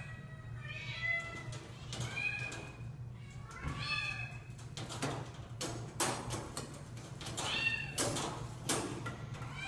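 A domestic cat meowing about four times, drawn-out calls that rise and fall. From about halfway through, a wire kennel door's metal latch rattles and clicks as the cat paws at it.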